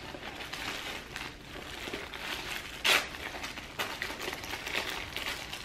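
Tissue-paper wrapping crinkling and rustling as it is pulled open by hand, with many small crackles and one sharp crack about three seconds in.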